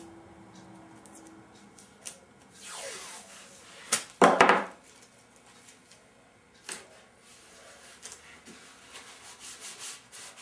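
Blue painter's tape ripped off the roll and torn, loudest in a brief sharp tear about four seconds in, then fingers rubbing the tape down onto the wood pieces in short scraping strokes near the end.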